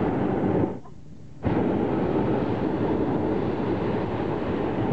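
Hot-air balloon propane burner firing with a steady, loud blast. It shuts off sharply for about half a second a little under a second in, then fires again abruptly.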